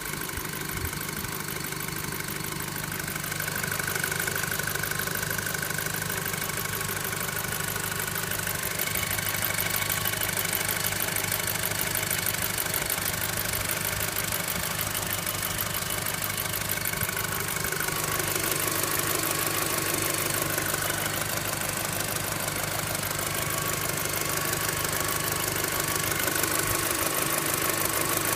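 Volkswagen Golf 5 GTI's 2.0 turbo four-cylinder engine idling with a fast metallic clatter and a thin, high, bell-like ringing tone that wavers in pitch. This is a strange ringing and engine rattle that the owner has not yet explained.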